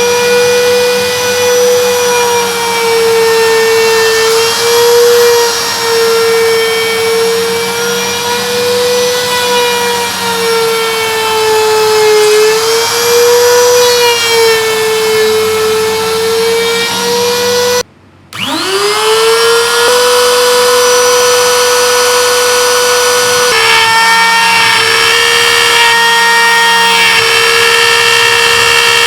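CNC router spindle whining steadily as a 6 mm compression bit mills wood, its pitch wavering slightly as the cutting load changes. About two-thirds of the way through the sound cuts out briefly, then the spindle whine climbs quickly back up to speed and runs steady again.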